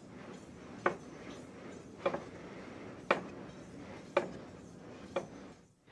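Chef's knife slicing a lemon into rounds on a wooden cutting board: five short knocks of the blade on the board, about one a second.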